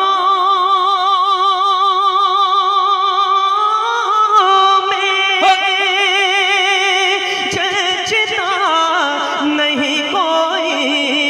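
A man singing a naat unaccompanied into a microphone: one long wordless held note with a wide, even vibrato, then ornamented runs that slide up and down in pitch in the second half.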